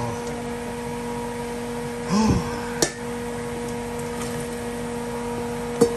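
A steady electrical hum in a kitchen, with a brief metallic clink just before three seconds in and a sharper knock near the end as a steel mixing bowl is handled and tipped against a steaming stockpot.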